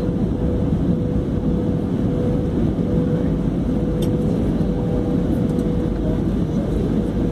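Steady engine and airflow noise heard inside an airliner cabin on approach, with a thin steady hum running through it.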